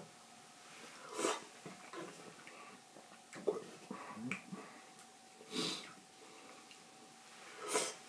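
A person eating hot pot at close range: three short breathy sounds of slurping and sniffing over the hot food, a sharp tap about three and a half seconds in, and small mouth and utensil noises between, over a faint steady hum.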